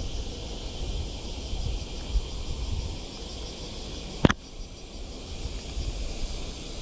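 Steady high-pitched insect chorus with a fine pulsing texture, over a low rumble of wind on the microphone. A single sharp click stands out about four seconds in.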